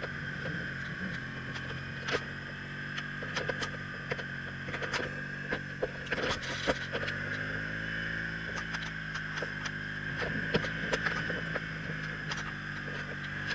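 BMW R1200CL's boxer-twin engine running under way as the motorcycle climbs, its pitch shifting about six seconds in and then rising again. Frequent short clicks and knocks sound over it.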